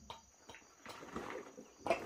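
Manual work noises from handling a sack and bricks: rustling and scraping in the middle, then a sharp knock just before the end. A steady high insect drone runs behind.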